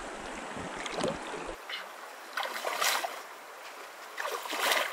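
Bare feet wading through a shallow, rocky creek: water splashing and swishing around the legs with each step, several times, over the steady rush of the flowing stream.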